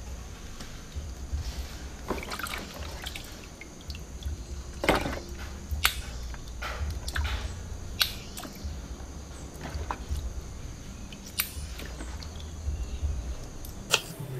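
Hands washing vegetable stalks in a plastic basin of water: splashing, sloshing and dripping, with a few sharp clicks along the way. Just before the end comes a single knife knock on a wooden chopping board.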